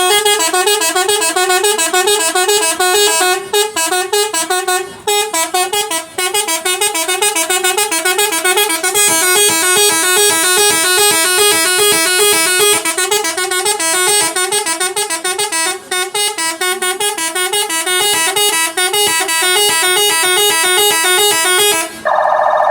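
Several buses' multi-tone musical horns (Indonesian 'telolet' horns) sounding together in a horn battle, each cycling rapidly through a short repeating melody so the tunes overlap. Near the end the melodies stop and a single steady blast takes over.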